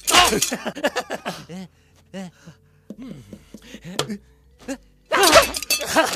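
Cartoon dog character yelling in pain in two loud, wavering outbursts, one at the start and one near the end, with short whimpers between them. About four seconds in there is a single sharp tap from a reflex hammer.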